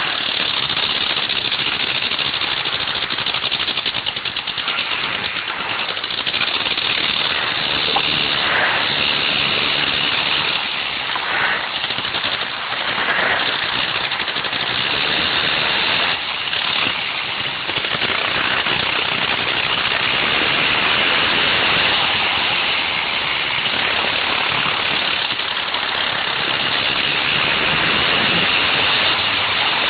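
Wankel rotary engine of a go-kart running hard while the kart laps the track, heard from on board. The noise is steady and loud, dipping briefly a few times.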